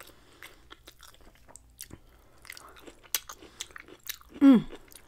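Close-miked chewing of chicken and pork kabobs: a stream of small wet clicks and smacks from the mouth. About four and a half seconds in, a short, loud hum from the eater's voice falls in pitch.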